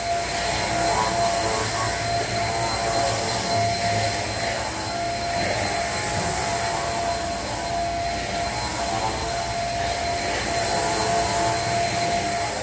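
Corded upright vacuum cleaner running on a hard floor, its motor giving a steady whine, pushed back and forth.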